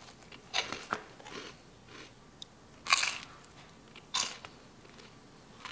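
Crisp crunches of toasted sourdough Japanese milk bread (shokupan) being bitten: several short crunches, the loudest about three seconds in and another just after four seconds.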